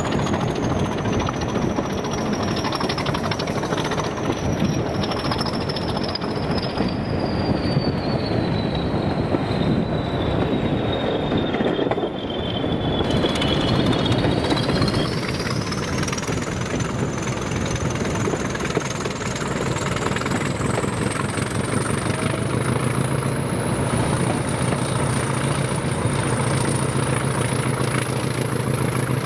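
Heritage diesel locomotive running, with a thin high whine that falls slowly in pitch over the first half and then climbs back up. A steady low engine note comes in near the end.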